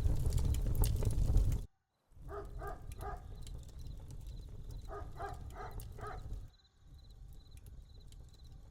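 A loud rumbling noise stops abruptly. Then an animal's call comes in short rapid pulses, three and then about five, over quieter outdoor ambience.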